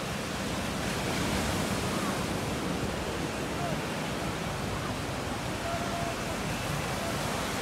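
Small ocean waves breaking and washing up a sandy beach: a steady rushing surf noise, with faint chatter of people in the background.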